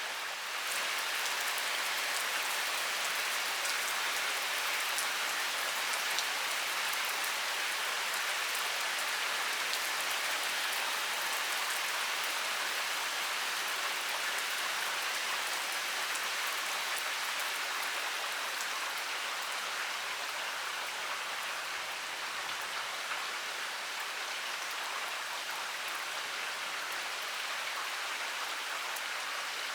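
Heavy rain pouring steadily: a dense, even hiss of falling water with fine, sharp drop ticks scattered through it.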